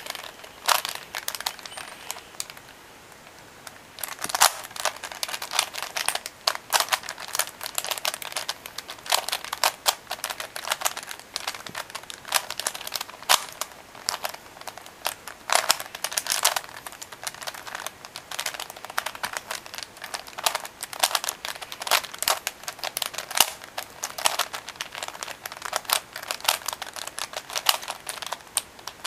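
Rubik's Cube being turned one-handed: rapid, irregular plastic clicking and clacking as the layers are twisted. The clicking pauses briefly near the start, then runs on almost without a break.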